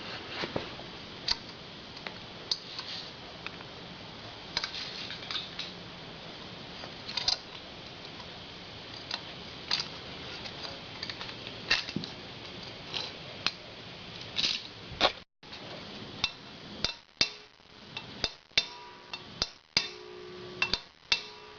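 Metal hand tools and valve-train parts of a Harley-Davidson Sportster 1200 cylinder head clinking and knocking as the valves and springs go back in, in irregular sharp clicks. A short ringing tone comes near the end.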